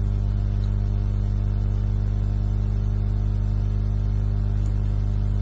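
Steady low hum made of several even low tones, unchanging in pitch and level.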